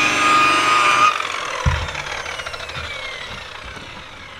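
Rotary buffer whining steadily at speed, then switched off about a second in and spinning down, its whine falling slowly in pitch and fading. There is a low knock shortly after it cuts off.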